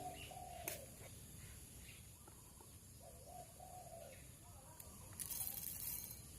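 Faint bird calls, short arching coo-like notes heard twice, with a brief rustling hiss about five seconds in.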